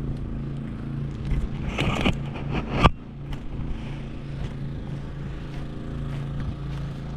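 Steady low engine hum. A rustling handling noise builds from about a second and a half in and ends in one sharp clack just under three seconds in.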